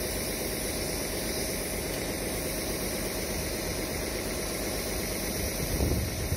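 An engine idling steadily, with a short low thump near the end.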